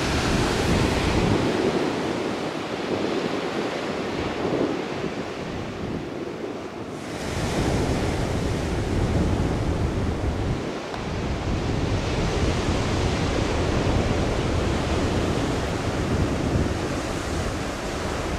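Sea surf washing onto a pebble beach, with wind buffeting the microphone, the wind heavier and louder from about seven seconds in.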